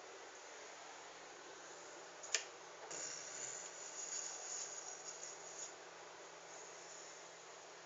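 A dog snoring softly: a single sharp click, then one long, airy breath lasting about two and a half seconds.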